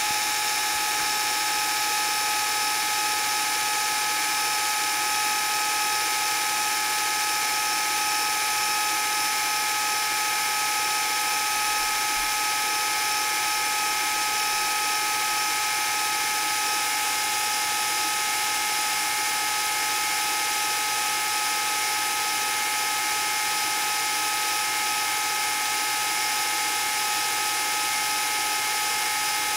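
Old film projector running steadily: a continuous mechanical whir with two steady humming tones over a hiss.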